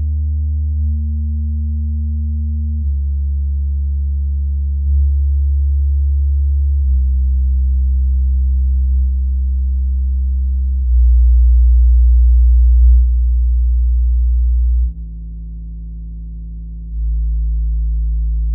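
Deep bass test tones played through Bose Companion desktop speakers, each held steady for about two seconds before stepping to a new pitch, with fainter overtones above. The tones get louder about 11 s in, drop sharply about 15 s in and rise again about 17 s in.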